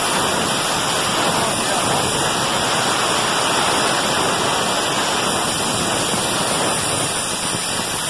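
Steady rushing hiss of compressed air from a shop air line.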